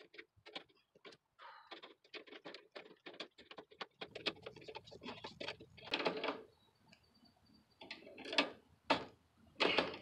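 Pliers clicking and scraping against a steel nut and bolt as the bolt on a garden cart's axle bracket is tightened by hand, in short irregular taps and knocks. A low steady background rumble comes in about four seconds in.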